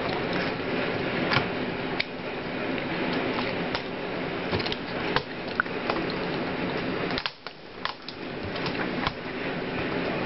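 A steady mechanical hum with scattered sharp clicks and light knocks. The hum drops away for under a second about seven seconds in, then returns.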